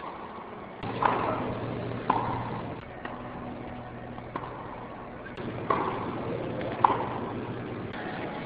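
Tennis ball being hit with a racket: four sharp pops in two pairs, each pair about a second apart, over a steady low hum.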